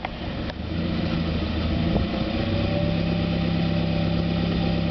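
A lifted Chevrolet Tracker's engine running steadily at low revs as the truck crawls slowly over boulders, with a thin whine over the engine note.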